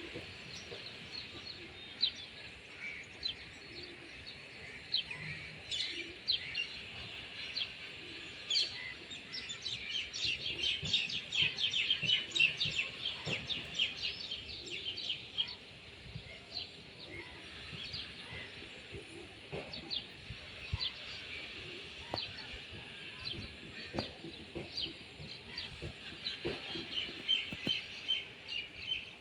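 A flock of small birds chirping: many short, high chirps in quick succession, thickest and loudest about ten seconds in.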